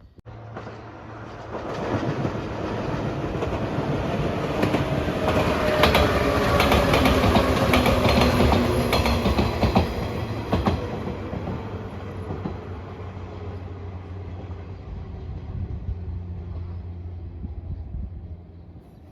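A train passing close by: the clatter of wheels over rail joints builds, is loudest about six to ten seconds in, then fades to a steady low drone.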